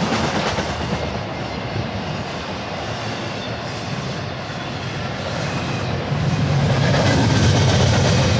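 Union Pacific intermodal freight train of double-stack container well cars and trailer flatcars rolling past, a steady rumble of wheels on rail. It grows louder with a deeper rumble about six seconds in.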